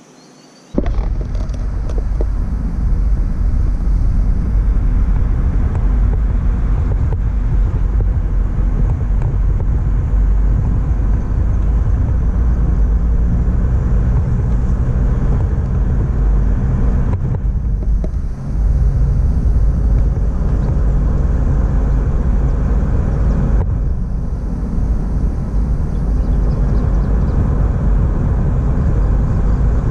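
Car driving on a paved road, heard from inside the cabin: a steady low rumble of tyres and engine that starts abruptly about a second in, with brief dips later on.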